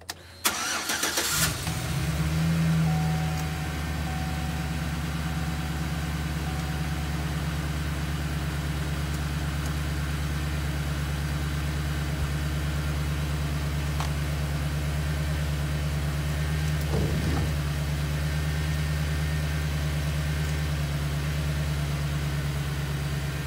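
Chevy Silverado 1500 pickup engine cranking and starting about a second in, rising briefly as it catches, then settling into a steady idle.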